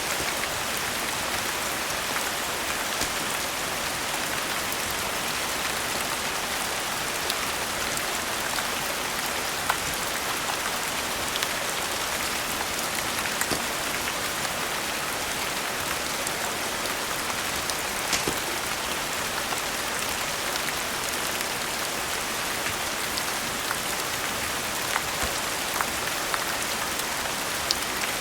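Steady rain falling, mixed with a wood fire crackling in scattered sharp pops.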